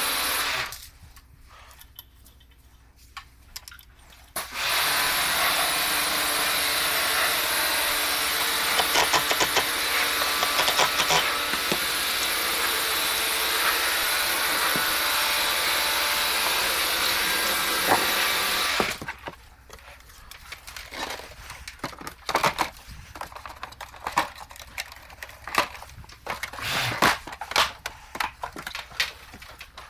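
High-pressure washer spraying air-conditioner parts: a steady, loud hiss of water that stops briefly, then runs again for about fourteen seconds. After it stops, parts knock and clatter as they are handled.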